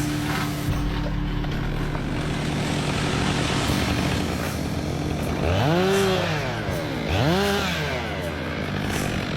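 Chainsaw engine running steadily, then revved up and back down twice in quick succession about two-thirds of the way through.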